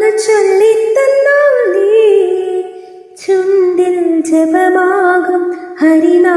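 A woman singing a slow melody in long held notes that glide between pitches, with a short pause about halfway through.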